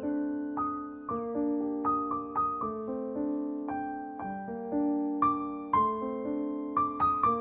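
Background music: a piano playing a melody of notes and chords, each note struck and fading, about two a second.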